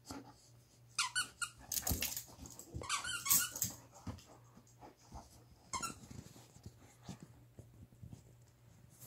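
A dog chewing a squeaky toy, squeezing out a run of short high-pitched squeaks in the first four seconds and one more about six seconds in, then only soft chewing noises.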